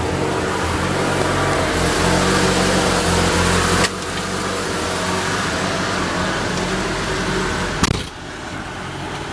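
A 1974 BMW 2002's four-cylinder engine idles steadily, still cold and not yet warmed up. About four seconds in it becomes a little quieter. Near the end a car door shuts with a sharp knock, and the idle is heard more muffled from inside the cabin.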